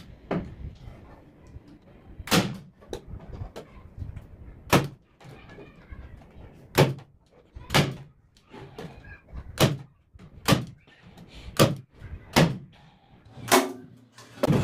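Pumpkin 50170 electric nailer firing nails into a wooden box: about ten sharp clacks, spaced roughly a second apart.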